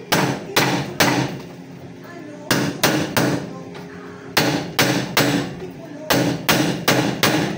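Hammer blows during e-bike repair: about a dozen sharp strikes in four runs of three or four, roughly two to three a second, each with a short ring.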